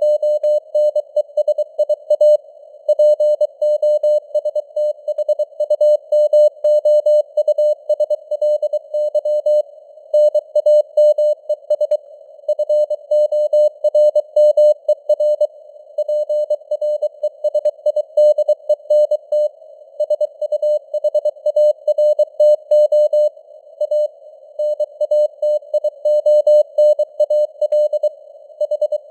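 Morse code sent at 23 words per minute: a single steady mid-pitched tone keyed on and off in dots and dashes. It sits in a narrow band of simulated radio static, and its strength rises and falls (QSB fading).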